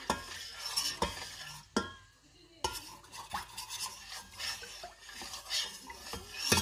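A metal teaspoon stirring a liquid mixture, clinking and scraping against the side of its container. A few separate clinks come first, then a short pause, then steady stirring from a little past halfway.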